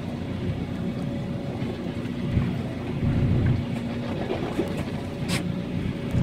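A small boat's engine running steadily, under a low rumble of wind on the microphone. A brief hiss about five seconds in.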